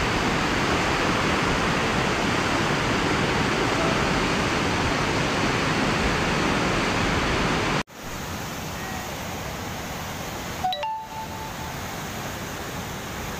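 Muddy floodwater rushing in a swollen torrent, a steady loud wash of water noise. A little past halfway it cuts off abruptly to a quieter rush of water, with a brief short sound partway through that.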